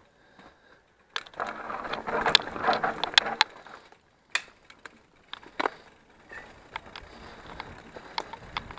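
Mountain bike clattering and rattling over rough trail: a dense run of clicks and knocks starting about a second in and lasting some two seconds, then scattered sharp clicks after a short lull.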